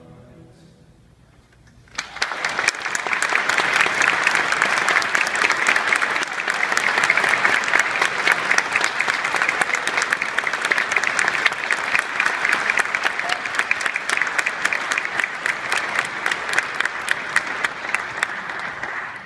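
Audience applauding: after a brief quiet, many people's clapping breaks out suddenly about two seconds in and keeps up steadily.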